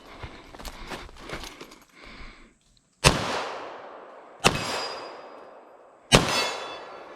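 Three shots from a Canik TP9 SFX 9mm pistol, each followed by a long fading echo, the second about a second and a half after the first and the third under two seconds later.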